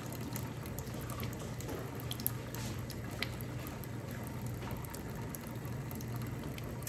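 Kitchen faucet running a thin trickle of water into a stainless steel sink, over a steady low hum.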